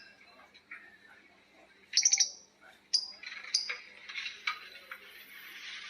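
Lovebirds calling: sharp, high chirps about two seconds in and again around three seconds, then a rapid rasping chatter that builds toward the end, the long 'ngekek' call of lovebirds answering one another.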